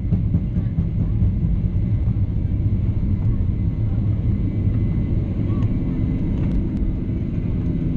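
Cabin noise of a Boeing 737-800 on its takeoff roll at takeoff thrust: a steady low rumble from its CFM56 engines and from the run down the runway.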